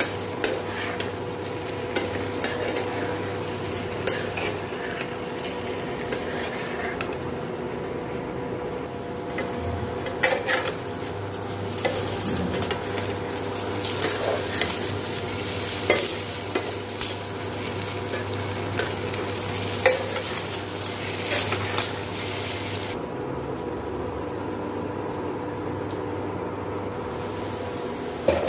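Diced potatoes frying in a nonstick pan while a spatula stirs and scrapes them, with frequent clicks of the spatula against the pan over the sizzle. The sizzle thins out about three-quarters of the way through.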